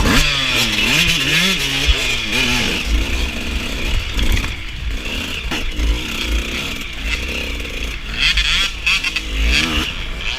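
Two-stroke dirt bike engine revving in short blips at low speed, its pitch rising and falling, with a steady hiss of wind and riding noise underneath.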